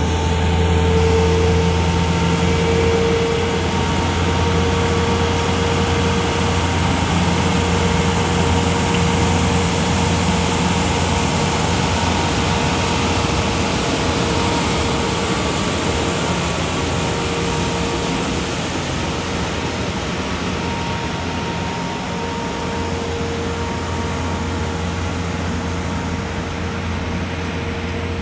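Isuzu-chassis Victory Mark III regenerative-air street sweeper running, its engine and vacuum blower making a steady drone with a held whine, slowly getting a little quieter.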